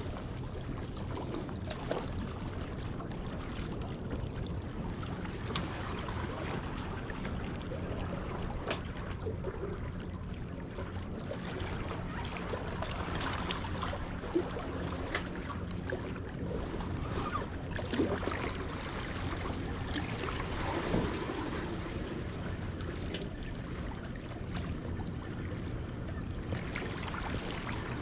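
Wind buffeting the microphone and surf washing against the jetty, a steady rushing noise with scattered faint clicks and knocks.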